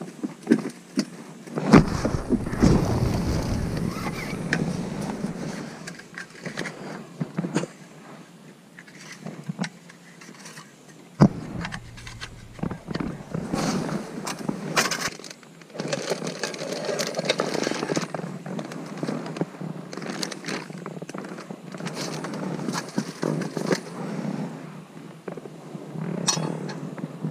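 Rustling and handling noise from an angler moving about and handling gear, with scattered knocks, clicks and scrapes. A low, rumbly stretch of handling noise starts about two seconds in and lasts a few seconds.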